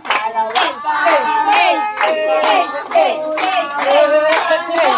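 A group of children singing a song together, with hand claps about twice a second keeping time.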